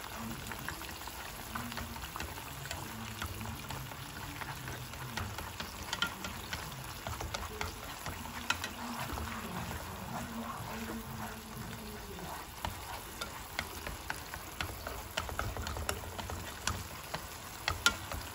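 Tomatoes in annatto oil sizzling and bubbling in a frying pan while chopsticks stir them. The chopsticks click against the pan now and then, most sharply near the end.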